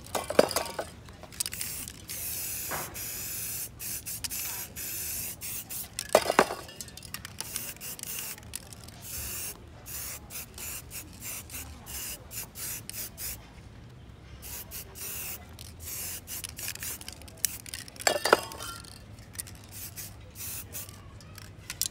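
Aerosol spray paint cans spraying onto a board in many short hissing bursts and one longer stretch, with three louder knocks along the way.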